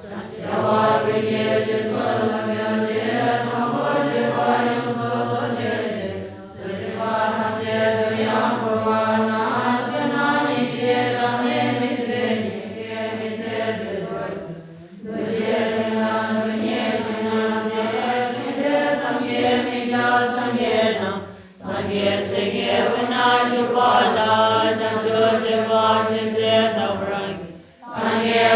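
A group of voices chanting Buddhist prayers in unison, in long, steady phrases broken by brief pauses every seven seconds or so.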